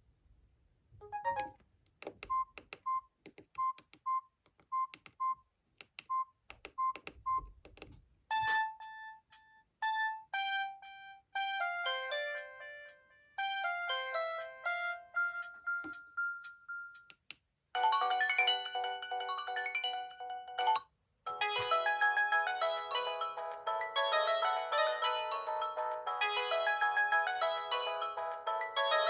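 Samsung E1210M mobile phone: keypad clicks, each with a short beep, as the menu is worked. It then plays ringtones through its small speaker. A simple melody of single notes starts about eight seconds in. A fuller, many-voiced ringtone follows from about eighteen seconds in, with a brief break just after twenty seconds.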